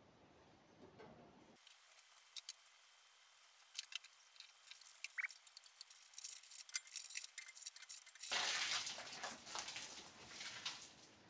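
Light clicks and taps of plastic toiletry bottles being set into a black metal wire shower caddy. About eight seconds in, a louder rustle of cloth brushing close to the microphone.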